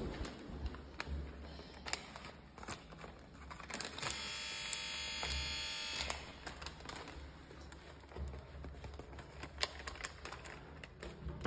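Paper bag crinkling in the hand and footsteps, with scattered light clicks. About four seconds in, an electric doorbell buzzes steadily for about two seconds.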